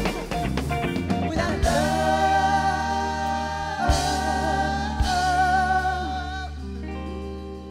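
Live band music: after a few rhythmic band hits, a woman sings one long held note with vibrato over a sustained chord, with a couple of drum hits under it, and the music fades away near the end.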